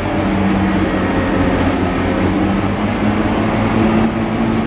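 A steady, loud mechanical drone with a low engine-like hum, like heavy machinery running.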